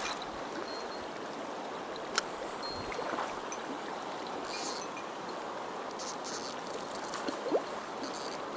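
Steady rushing of a fast-flowing mountain stream, with a single sharp click about two seconds in and a few faint brief rustles and knocks later.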